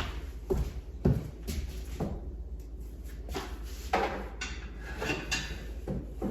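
A run of irregular knocks and clunks from hard objects being handled, about a dozen over the few seconds, over a steady low hum.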